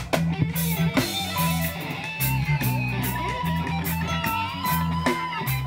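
Live rock band music, instrumental: an electric guitar plays a lead line with bent notes over bass guitar and drums.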